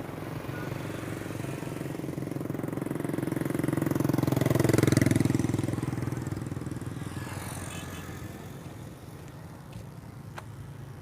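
Road traffic: a motor vehicle passes close by, its engine and tyre noise swelling to a peak about halfway through and then fading away, over the steady hum of other traffic.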